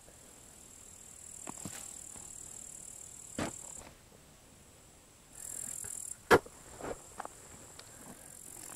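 Digging: a shovel blade knocking and cutting into turf and soil in short sharp strokes, the loudest about six seconds in. Behind it, insects keep up a high steady buzz that stops for a second or two and starts again.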